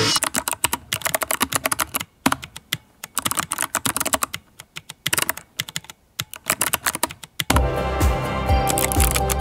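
Fast typing on a Keyboardio Atreus mechanical keyboard: a rapid clatter of keystrokes in bursts, with short pauses between them. Background music with a beat comes back in near the end.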